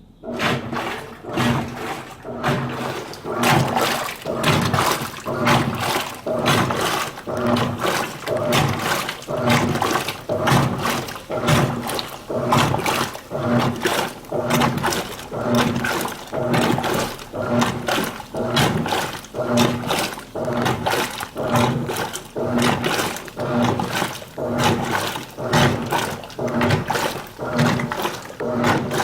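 Washing machine agitating on its delicate cycle, driven by a universal electronic control board: the motor hums in short strokes about once a second, with water sloshing in the tub. It kicks in suddenly at the start.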